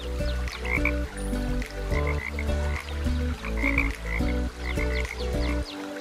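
Frogs croaking in short calls of two or three quick pulses, repeated every second or so, over background music with a bass line.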